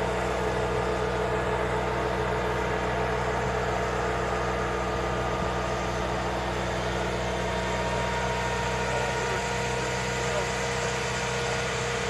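Armored bridge-launcher vehicle's engine running steadily as it folds its launch mast down after laying a scissor bridge: a constant low hum with a few steady higher tones over it.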